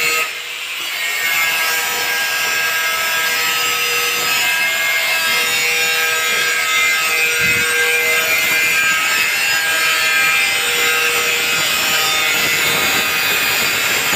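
Angle grinder running under load, cutting steadily with a high whine over a gritty hiss.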